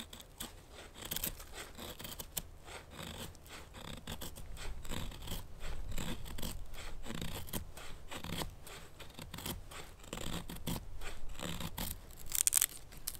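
Enzo Trapper knife blade shaving curls off a stick of wood for a feather stick: a run of short, irregular scraping strokes, the loudest one near the end.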